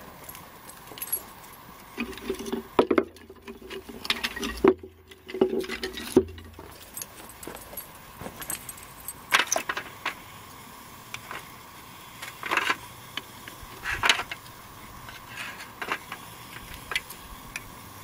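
Dry split kindling sticks clicking and clacking against each other and the steel bowl as they are laid crosswise onto a small fire, in irregular sharp knocks.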